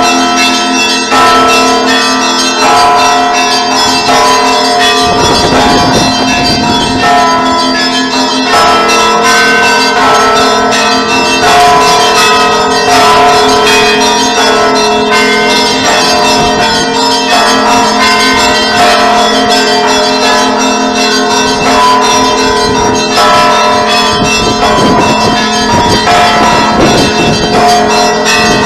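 Church bells ringing continuously, several bells struck in quick succession over their long-sustained, overlapping hum. A deeper rumble swells in about five seconds in and again near the end.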